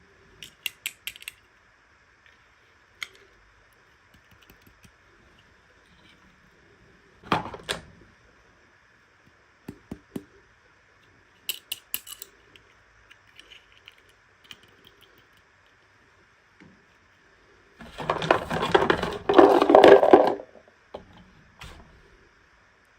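Toy packaging and small plastic pieces being handled: a run of sharp clicks and taps, a couple of knocks, then a loud crinkling rustle of plastic packaging lasting about two seconds near the end.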